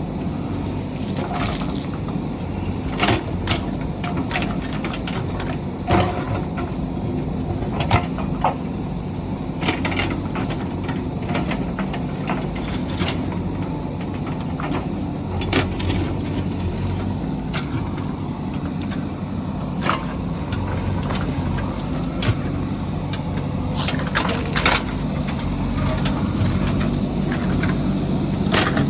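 JCB backhoe loader's diesel engine running steadily, with frequent sharp knocks and clanks scattered through it.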